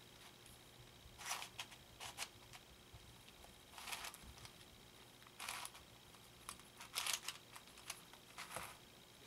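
Shengshou 4x4 Morphix puzzle cube being turned by hand: faint, short plastic clicks and scrapes of its layers turning, about a dozen at irregular intervals with pauses between.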